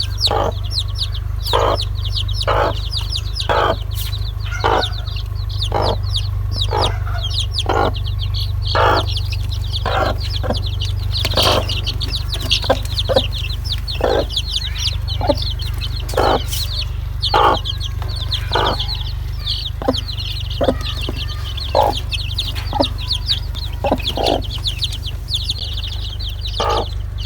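Domestic chicks peeping, high, rapid and repetitive, several calls a second without pause. Lower, short clucks come in about once a second, with a steady low hum underneath.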